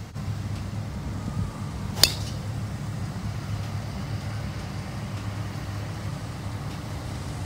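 A golf driver strikes a ball off the tee once, about two seconds in: a single sharp crack with a short ring. A steady low rumble runs underneath.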